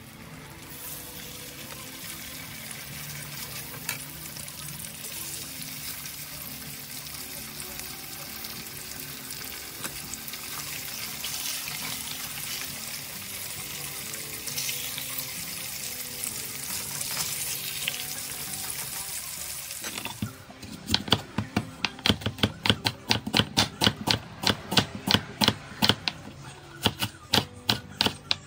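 Tilapia fillets sizzling in hot oil in a nonstick frying pan. About twenty seconds in, this gives way to a knife slicing an onion on a bamboo cutting board: a quick, steady run of sharp chopping taps, louder than the frying.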